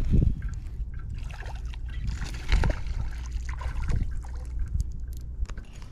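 Wind rumbling on the microphone, with a few knocks and rustling as gear is handled in a canoe, the loudest knocks near the start and about two and a half seconds in.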